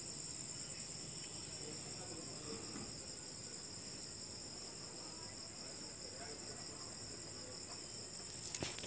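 Crickets chirping steadily in two high, rapidly pulsing trills at slightly different pitches, with a few sharp clicks near the end.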